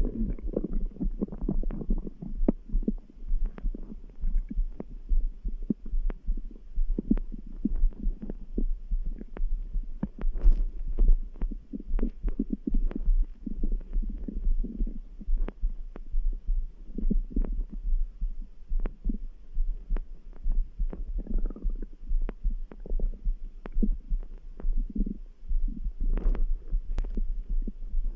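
Stomach and intestinal gurgling: scattered small pops, crackles and short bubbling rumbles over a steady low heartbeat throb underneath.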